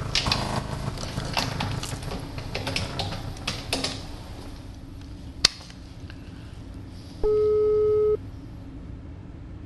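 Telephone ringback tone heard by a caller waiting for an answer: a steady beep about a second long, starting just after seven seconds in, with the next ring starting at the very end. Before it come a few scattered clicks and knocks.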